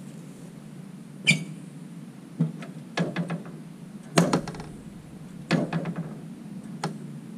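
Sharp metallic knocks and clatters, some in quick clusters, from boots stepping onto and working the metal foot platform and GrassFlap chute pedal of a Ferris Z2 stand-on mower, engine off. The loudest come about a second in and just past four seconds.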